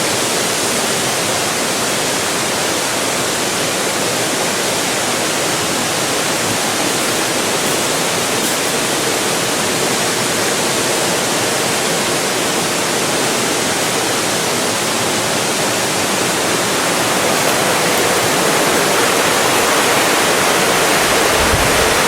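Steady rush of water from a waterfall and the stream running from it, growing a little louder near the end.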